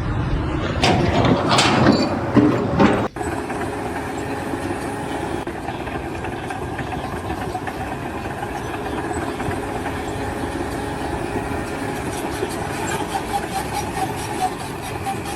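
A few sharp knocks and clatter, then, after an abrupt cut about three seconds in, a machine engine running steadily with an even hum.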